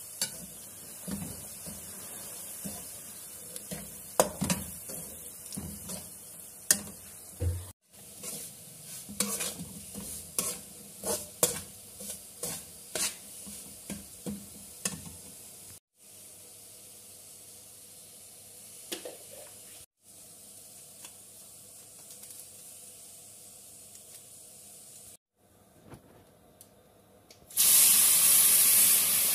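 Flat metal spatula scraping and clicking against an aluminium pan as semolina is stirred and dry-roasted, in irregular strokes over a faint hiss. Near the end, water poured into the hot pan sets off a sudden loud hiss and sizzle.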